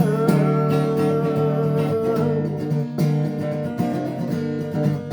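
Acoustic guitar strummed in a steady rhythm, playing the chords of a rock song.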